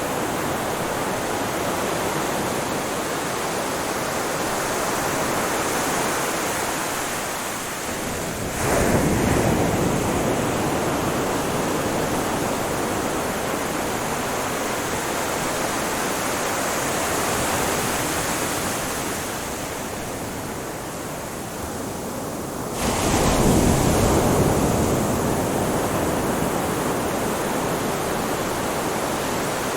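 Ocean waves on a shore: a steady rushing wash, with a wave breaking suddenly and louder about nine seconds in and another about twenty-three seconds in, each fading back into the wash.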